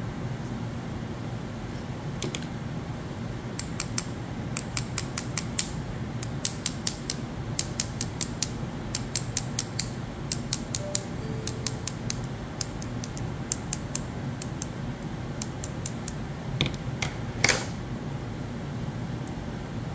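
Steel scissors tapping on a half-boiled egg's shell to crack it: runs of quick, light clicks, several a second, with a sharper, louder crack near the end. A steady low hum sits underneath.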